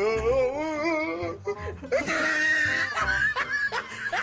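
Laughter over background music: a long wavering laugh in the first second, then short rising bursts of giggling, about three a second, near the end.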